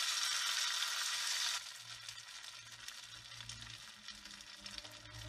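Semolina vadas deep-frying in hot oil in a kadhai: a steady sizzle with fine crackling that suddenly drops to a quieter sizzle about one and a half seconds in.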